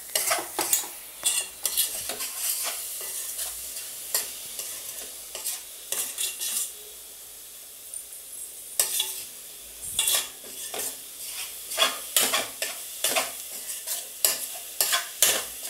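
Metal spoon scraping around a steel pot while stirring a grated coconut and jaggery filling over a low flame, in irregular strokes with a short lull about halfway through. The stirring keeps the filling from sticking to the bottom while the jaggery blends into the coconut.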